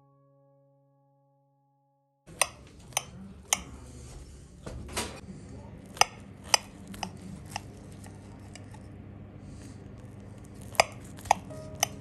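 Metal knife and fork clinking against a ceramic plate while cutting into a vegetable omelette, about ten sharp clinks in three clusters, starting a couple of seconds in over a steady low hum. A single piano note fades out at the very start.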